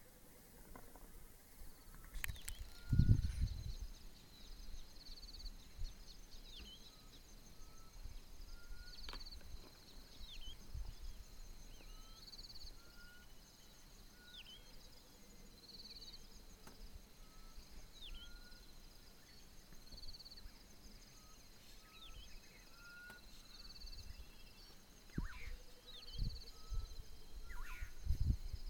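Insects chirping steadily in a high pulsed trill, with birds calling in short repeated whistles and quick falling notes. A few low thumps break in, the loudest about three seconds in and several more near the end.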